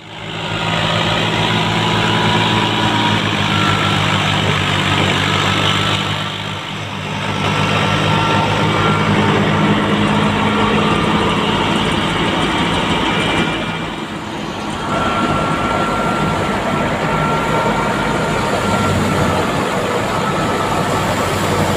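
Wheat thresher running steadily under load, driven through a PTO shaft by a Fiat 480 tractor's three-cylinder diesel engine, as wheat is fed into the drum. A high whine comes and goes over the steady din, and the level dips briefly twice.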